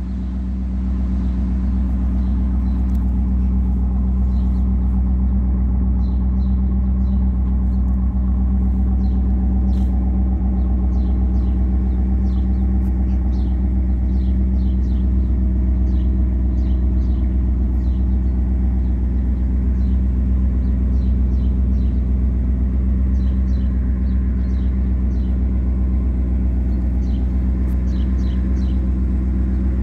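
Pontiac Firebird's L69 5.0-litre HO V8 idling with a steady, even rumble.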